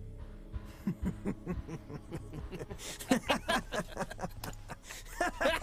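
Several voices laughing in quick, repeated bursts, growing louder and fuller about three seconds in.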